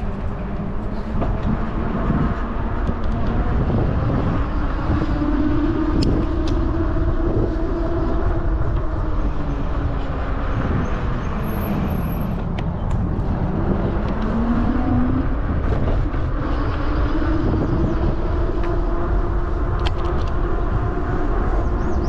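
A motor vehicle's engine running with a continuous low rumble, its pitch rising and falling as it speeds up and slows down.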